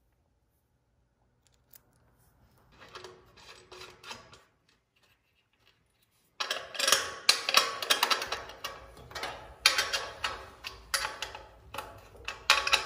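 Steel bolts clinking and clicking against an aluminum motor plate as they are fitted by hand and slid in and out of their holes. It starts near silent with a few faint clicks, then a loud run of irregular metal clicks begins about halfway through.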